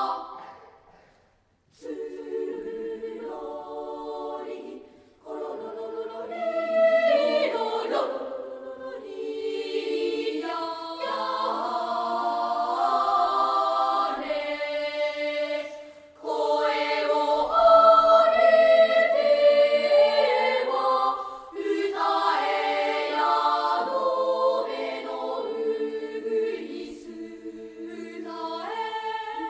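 Elementary-school children's choir singing in phrases. There is a short silence about a second in, and brief breaks between later phrases.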